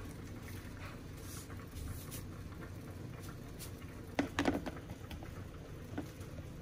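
Salt poured from a carton into a small plastic tub: a soft patter with a few light clicks and taps about four seconds in. A spoon clicks once against the tub near the end.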